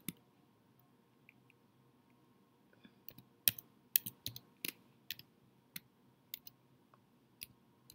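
Computer keyboard being typed on: an irregular run of sharp key clicks that starts about three seconds in.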